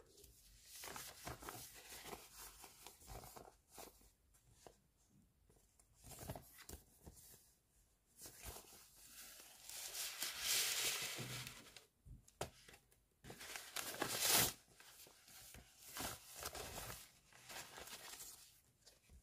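A white paper pouch crinkling and rustling in the hands and being torn open, in irregular bursts, with the loudest rips a little past halfway.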